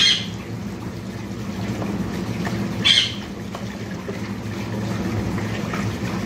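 Kitchen tap water running into a metal bowl of raw chicken pieces as they are rubbed and rinsed by hand, a steady splashing. Two short high chirps cut through, one at the start and another about three seconds in.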